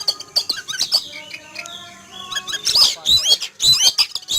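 Oriental magpie-robin singing loudly in a fast run of varied whistled notes and up-and-down glides, its excited song which the owner credits to the bird being frightened by a passing eagle.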